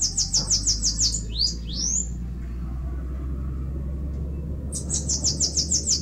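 Bananaquit (cambacica) singing: a high, rapid run of repeated notes, then two short rising notes, then a second rapid run near the end. A steady low rumble runs underneath.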